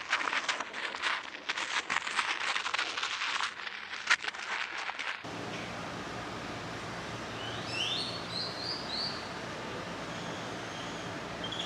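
Irregular crackling and rustling for about five seconds, then an abrupt change to a steady outdoor hiss with a quick run of bird chirps a couple of seconds later and one more chirp near the end.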